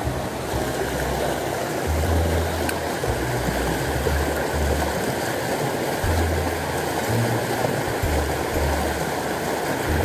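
Mountain stream rushing over rocks and a small cascade, a steady, unbroken water noise. A low bass line of background music runs beneath it.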